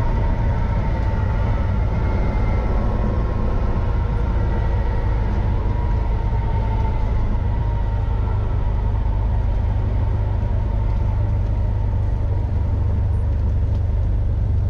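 Cessna 172N's four-cylinder engine and propeller at low power in the cockpit during the landing rollout: a loud, steady low drone. Faint higher tones slowly drop in pitch and fade over the first half as the aircraft slows.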